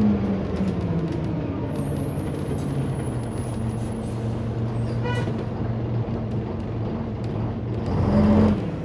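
Volvo Olympian double-decker bus running on the road, heard from inside on the upper deck: a steady engine and road hum whose pitch drops in the first second and then holds low. There is a brief high tone about five seconds in, and the sound swells louder near the end before cutting off sharply.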